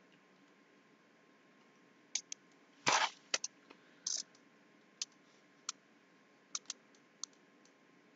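Scattered sharp desk clicks, about ten over five seconds, with one louder knock a little before the midpoint, from someone working a computer at a desk. A faint steady hum runs beneath.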